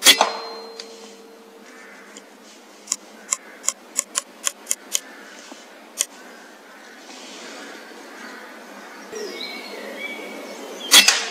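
Two air rifle shots at grey squirrels, each a sharp crack with the pellet strike, one right at the start and one about 11 seconds in. Between them comes a quick run of about eight sharp clicks.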